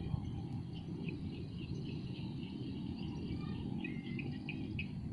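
Insects chirping, with a few short bird-like chirps, over a low steady rumble.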